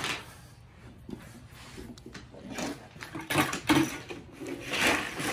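A young child's wordless vocal play noises, in short bursts, the loudest a little past three seconds and just before five seconds in.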